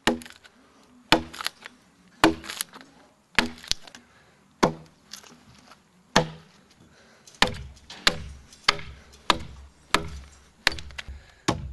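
Hand adze chopping into a large timber: sharp woody strikes, about one a second at first and coming faster in the second half, as chips are split off.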